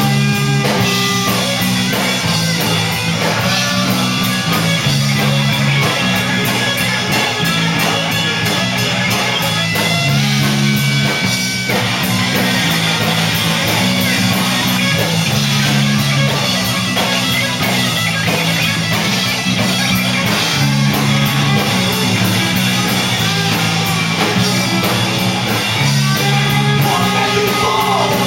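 Live rock band playing an instrumental passage: guitars over bass and drums with a steady beat.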